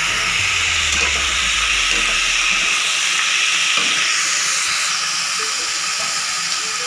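Chopped onions, cashews and freshly added tomatoes sizzling in hot butter and oil in a pan, a steady hiss that eases slightly about four seconds in.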